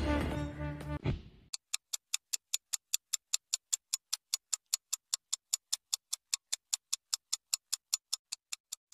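Background music with a low rumble fades out about a second and a half in. Then a clock-style ticking sound effect runs at an even pace, about four dry ticks a second, marking time passing while waiting.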